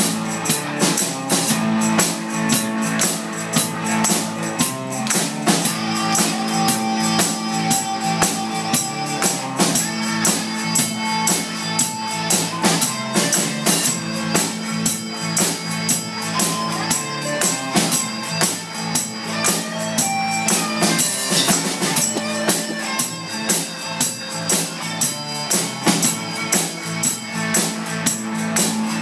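Live band playing an instrumental stretch with no singing: a drum kit keeps a steady beat, with a tambourine shaken along.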